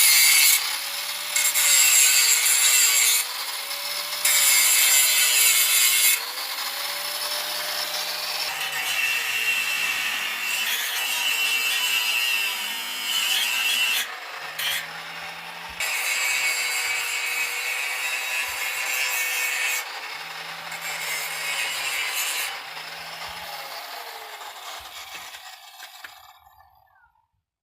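Angle grinder working steel, its disc hissing in several long passes while the motor's pitch dips and recovers as the disc is pressed into the metal. The grinder winds down and stops near the end.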